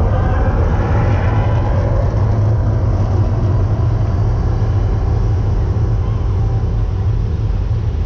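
Deep, steady rumble with a roaring haze over it: the eruption effects of the Mirage volcano show.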